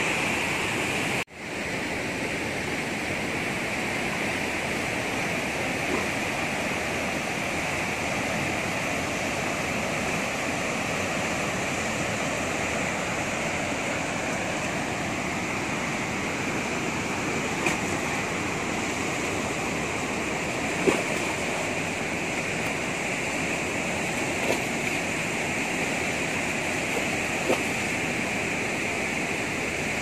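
Fast brown river water rushing over rocks at a waterfall, a steady noise throughout. The sound drops out for a moment about a second in, and a few brief clicks come through later.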